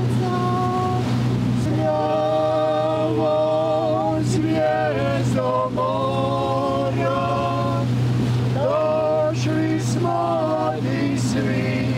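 Steady low drone of a boat engine, with a voice singing a slow melody over it that slides between notes.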